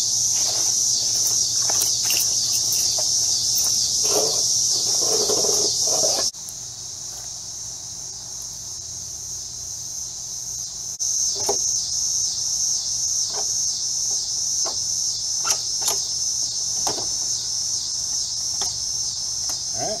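Steady, loud, high-pitched buzzing of insects. Over its second half come a few sharp clicks and knocks of tools and metal parts being handled.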